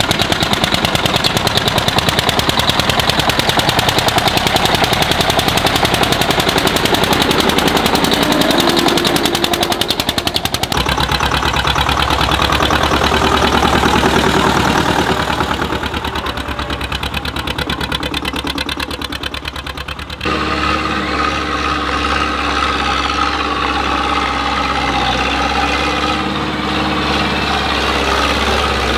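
Tractor diesel engines running hard under load on a hill climb, the exhaust a rapid, even stream of firing pulses. The sound changes abruptly about ten seconds in and again about twenty seconds in, after which an engine runs more steadily.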